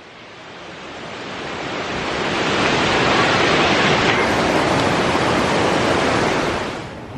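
Water rushing down a curtain waterfall: a steady, even rushing that swells over the first few seconds, holds, and then fades away near the end.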